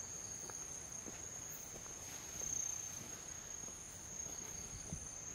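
A steady, high-pitched drone of insects in the forest, with faint, irregular footsteps on the path underneath.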